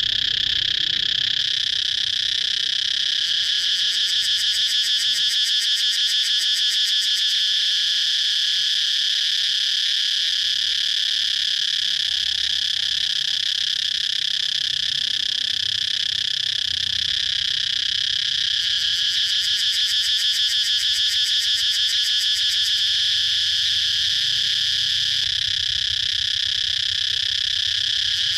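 Cicadas calling in a steady, high-pitched drone, with a rapid pulsing that swells twice.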